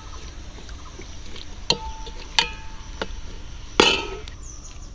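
Long steel ladle knocking against a large aluminium cooking pot while stirring onions in oil: three metallic clanks that ring briefly, the last, about four seconds in, the loudest.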